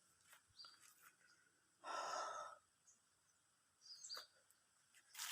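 Near silence, with one short breathy rush of air about two seconds in and a few faint high chirps later on.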